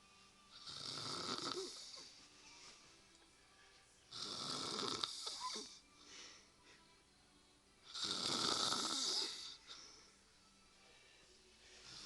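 A woman snoring in her sleep: three snores about four seconds apart, each about a second and a half long, with a fourth starting near the end.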